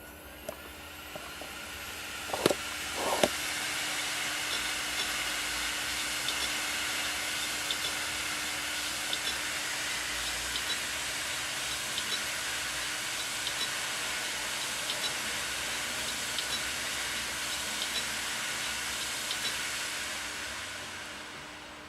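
3 TB Seagate hard drive spinning up with a rising whir and two sharp knocks a few seconds in, then running with a steady hiss and faint irregular ticks before winding down near the end. The knocking comes from a drive that is no longer detected by the computer.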